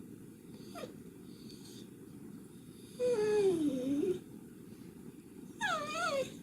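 Shiba Inu whining in three drawn-out, wavering calls: a short one about a second in, a longer one that falls in pitch about three seconds in, and a brief one near the end.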